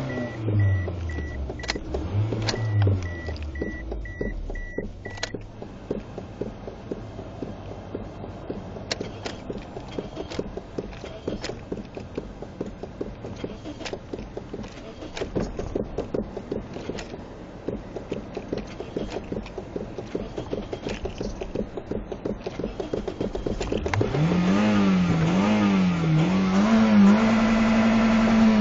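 Toyota Corolla engine settling from a rev, then idling unevenly for most of the time, with a high pulsing beep over the first few seconds. About 24 seconds in it is blipped up and down three times and then held at a steady high rev.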